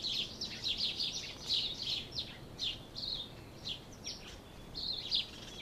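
Birds chirping: a quick, continuous run of short high chirps with brief gaps between them, over a faint background hiss.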